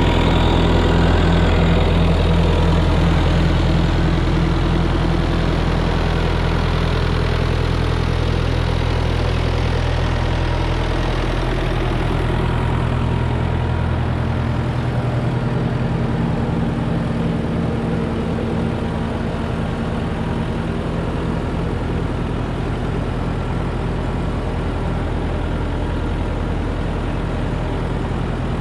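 Engine of a heavy farm machine running steadily, with a low, even engine note. The higher hiss eases a little about twelve seconds in.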